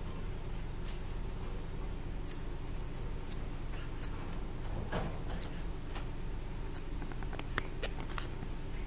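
Baby marmosets giving short, very high-pitched squeaks, a dozen or so scattered through, over a steady low hum.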